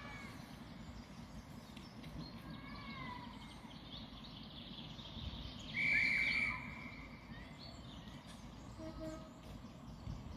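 Outdoor ambience with small birds calling and singing, over a low background rumble. About six seconds in comes the loudest sound: a short, high, steady whistle lasting under a second.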